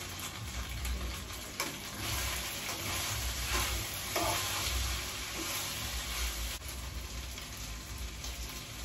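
Food sizzling as it fries in a pan, with a few short knocks and scrapes of a utensil stirring it.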